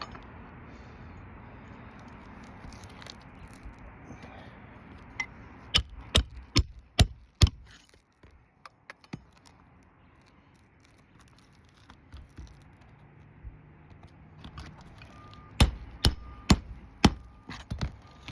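Hammer driving roofing nails to tack a replacement asphalt shingle into place: two runs of about five quick, sharp strikes, several seconds apart.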